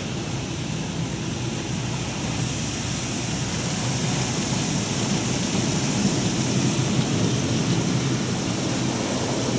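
NuStar soft-touch automatic car wash brushes and water spray working over the car, heard from inside the cabin: a steady rushing wash noise with a low hum, the hiss getting stronger about two seconds in.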